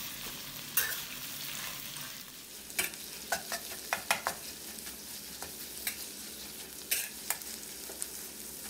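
Minced pork sizzling in hot oil in a wok as it is stir-fried with pounded chilli and garlic, with a metal spatula scraping and knocking against the pan at irregular moments.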